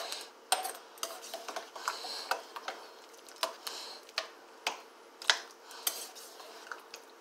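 A spoon stirring a thick pot of beans and neckbones in a slow cooker crock, knocking and clicking against the pot irregularly, about two times a second.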